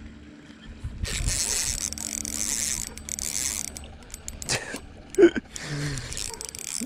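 Spinning fishing reel being cranked, its gears whirring and clicking, starting about a second in, with a few sharper clicks later.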